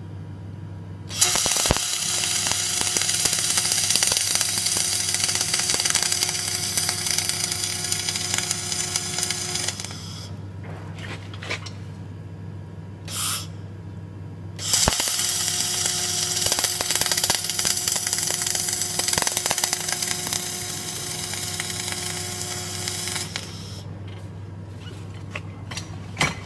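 Flux-cored arc welding: the arc strikes and crackles steadily for about nine seconds, stops, then strikes again after a pause and crackles for about eight seconds more. A steady low machine hum runs beneath it.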